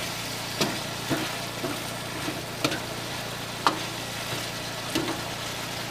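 Chicken masala sizzling in a wok, with a steady frying hiss, while a metal spatula stirring it knocks against the wok about five times at uneven intervals.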